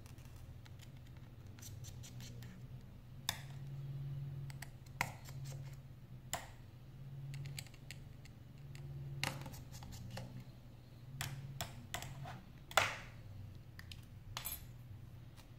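Scattered small clicks, taps and scrapes of a precision screwdriver and metal parts as tiny screws and a metal bracket are worked loose inside an opened iPhone 5, with one sharper click near the end.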